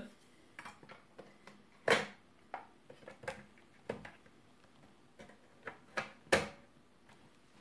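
Wooden knocks and light clicks from handling a Hohner melodeon's treble end as a flat wooden panel is fitted and pressed into place. The sharpest knocks come about two seconds in and a little after six seconds in, with lighter taps between.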